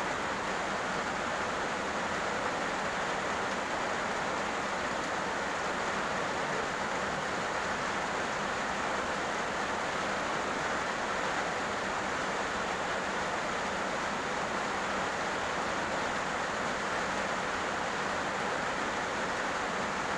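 Heavy rain pouring steadily on a road, an even, unbroken hiss with no thunder.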